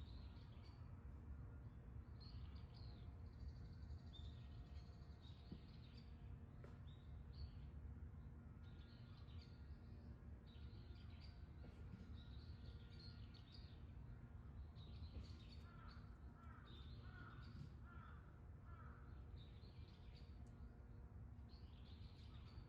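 Faint dawn ambience of small birds calling with short high chirps again and again, and a run of four or five lower calls about two-thirds of the way through, over a low steady rumble.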